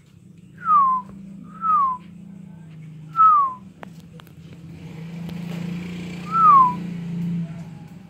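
Four clear whistles, each one sliding down in pitch for about half a second, over a steady low hum.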